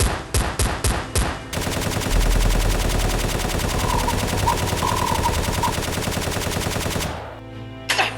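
Gunfire: about six single shots in the first second and a half, then a long burst of continuous automatic fire that stops about seven seconds in.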